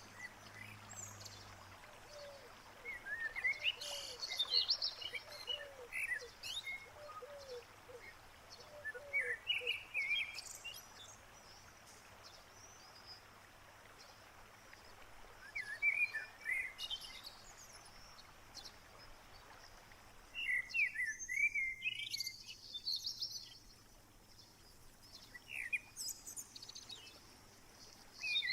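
Wild songbirds singing, a short warbling phrase repeated every few seconds, with a run of lower soft calls in the first third, over a faint steady hiss of outdoor background noise.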